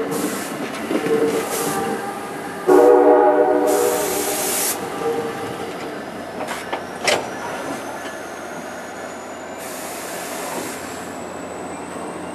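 NJ Transit Multilevel passenger coaches rolling slowly past with steady wheel and rail noise. A several-note train horn sounds for about two seconds and is the loudest part. Later a thin high whine rises slowly in pitch, with a sharp click shortly before it.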